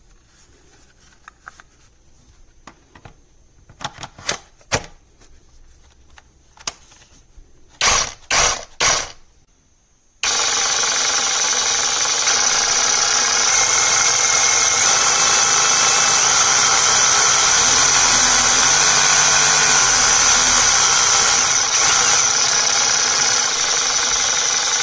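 Cordless brushless reciprocating saw running steadily for about fourteen seconds, starting suddenly and stopping abruptly. Before it, scattered knocks and clicks end in three loud thumps.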